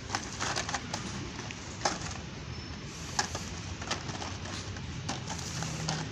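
Blister-carded toy cars clicking and crinkling against a wire peg display rack as a hand flips through them. Scattered sharp clicks over a steady low hum.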